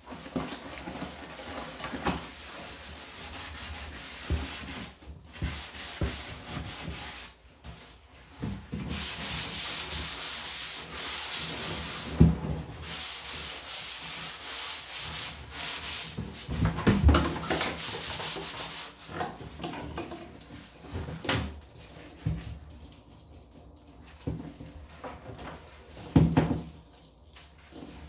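A sponge in a rubber-gloved hand scrubbing soapy lather over a black plastic garbage can: a continuous scratchy rubbing that swells and eases with the strokes. A few short knocks are heard along the way.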